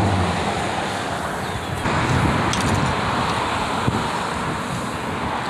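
Steady road-traffic noise with wind buffeting the microphone.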